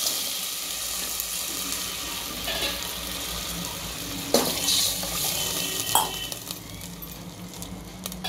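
Water being poured into hot oil and fried spices in an aluminium pressure cooker, sizzling and bubbling as it settles down. Two sharp knocks come about four and six seconds in.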